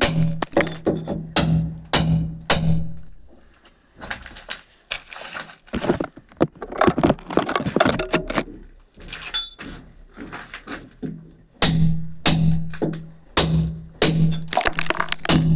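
Hammer striking a steel chisel into brickwork to cut a chase in a brick wall, the blows coming about twice a second. They come in two bursts, with a pause in the middle of a few seconds.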